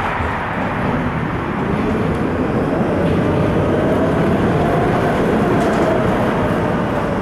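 Ganz articulated tram running, heard from inside the passenger car: a steady rumble of the wheels and car body on the rails. A faint whine rises in pitch about three seconds in and sinks again near the end.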